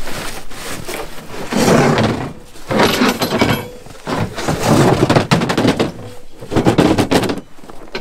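Footsteps crunching heavily through deep snow, about four slow, rough crunches a second or so apart, as someone climbs over a snowbank.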